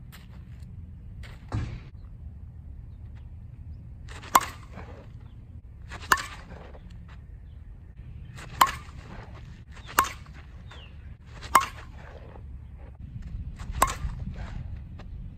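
Louisville Slugger Cuz senior slowpitch softball bat striking pitched softballs: six sharp cracks, each with a brief ring, about one and a half to two and a half seconds apart. A steady low rumble sits underneath.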